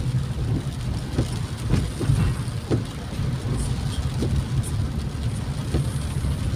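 Steady low rumble of a vehicle's engine and tyres on a wet road, heard from inside the moving vehicle.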